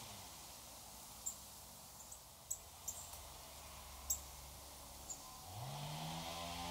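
A Eurasian nuthatch at a wooden bird table making about five short, sharp, very high ticks spread across a few seconds. About five and a half seconds in, a low droning hum with many overtones slides up a little in pitch and then holds steady.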